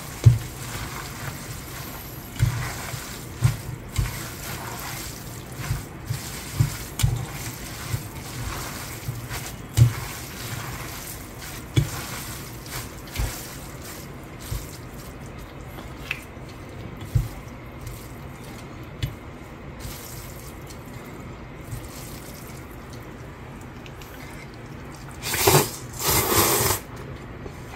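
Hands tossing and squeezing sauced bibim-guksu noodles and greens in a stainless steel bowl: wet squelching with many soft low thumps. Near the end, two loud slurps as a handful of the noodles is sucked up.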